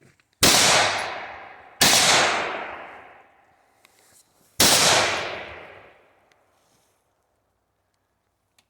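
Three rifle shots, about a second and a half and then nearly three seconds apart, each with a long fading echo.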